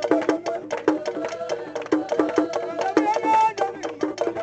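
Igala popular music from Nigeria: a fast, dense pattern of sharp, clicking percussion strikes over a pitched melodic line that bends up and down.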